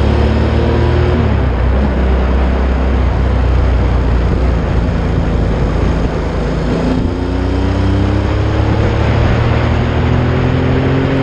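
Yamaha XS750's air-cooled three-cylinder engine running under way, with wind rushing over the microphone. The engine pitch sags a little in the first second or so, then climbs steadily through the second half as the bike pulls harder.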